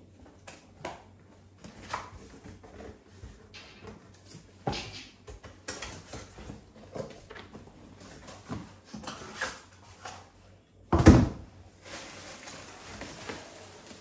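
Cardboard box being opened and unpacked: scattered scrapes and rustles of cardboard flaps and packing, with one loud thump about eleven seconds in, then steady rustling as a heavy enamel cookware piece in a plastic bag is lifted out.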